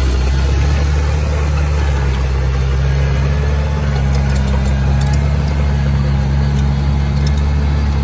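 Diesel engine of a small crawler bulldozer running steadily with a low, even hum as the machine crawls over dirt, with a few faint clicks about halfway through.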